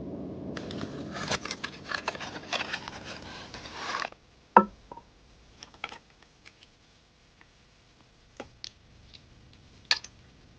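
Rapid scraping strokes of hand work on a knife for about four seconds, then they stop suddenly. A sharp knock follows, then scattered light clicks and taps, with another sharp click near the end.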